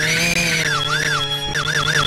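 Eerie trailer music: a wavering high tone swoops slowly up and down over a steady low hum, then turns to a fast wobble about halfway through.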